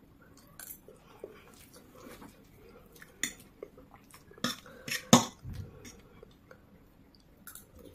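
A metal fork clicks and scrapes on a serving tray while scooping instant noodles, mixed with small close-up eating noises. The clicks come scattered and bunch together about four to five seconds in, where one sharp clink is the loudest.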